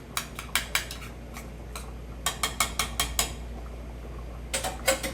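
A utensil clinking and knocking against a cooking pot as sour cream is stirred into cooked macaroni noodles. The clicks come in irregular groups, with a quick run of about seven around the middle and another cluster near the end.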